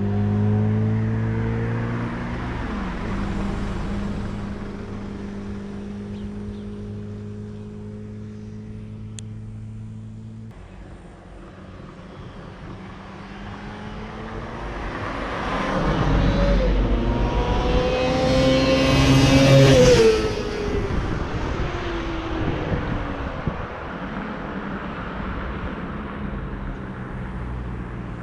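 Yamaha FZR250's 250 cc inline-four engine fading away into the distance, then coming back with rising revs. It is loudest about twenty seconds in, where the pitch drops sharply as it passes, and then it fades again.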